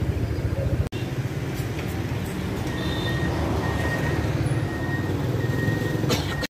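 Steady low rumble of street traffic, broken by a split-second dropout about a second in, with a faint high whine in the second half.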